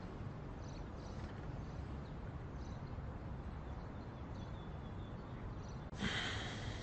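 Low steady background noise, then about six seconds in a man lets out a short, breathy sigh.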